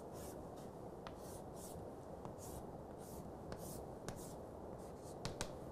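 Chalk drawing lines on a chalkboard: a series of about nine short, faint scratching strokes, with a few light clicks of the chalk against the board.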